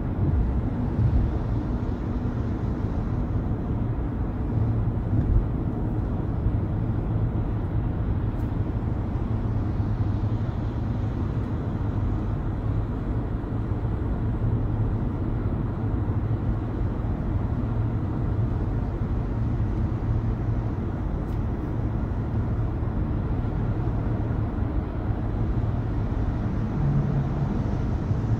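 A car driving, with a steady low drone of engine and tyre noise.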